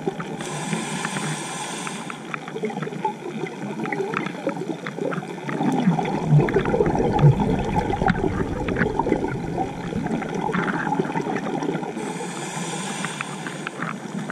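Scuba diver breathing through a regulator, heard underwater: a hissing inhale near the start and again near the end, with a louder bubbling exhale in between. A steady crackle of small clicks runs underneath.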